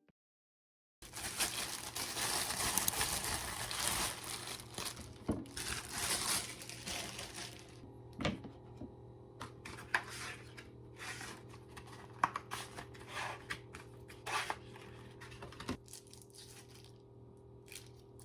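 Crinkling and tearing, as of packaging being handled and opened, for several seconds, then scattered light clicks and taps.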